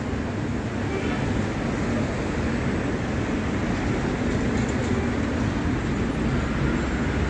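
Steady city street traffic noise: cars and other vehicles driving past on the road.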